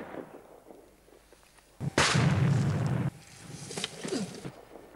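A homemade special-effects explosion: a sudden loud blast about two seconds in that lasts about a second and drops off abruptly, followed by fainter rumbling and crackling. Before it, the tail of an earlier blast fades out.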